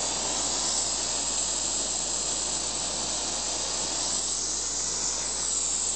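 Oxy-acetylene gas welding torch with a number 3 tip burning a steady hissing flame, turned up high to heat thick metal.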